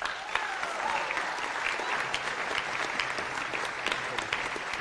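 Audience applause, many hands clapping in a hall. It starts suddenly and keeps up a steady, dense level.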